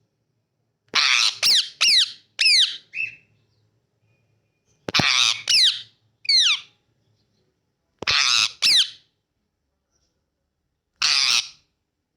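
Green parrot screeching in harsh, falling calls, in groups of four, three, two and then one, with pauses between: the loud squawks of an aggressive, agitated bird.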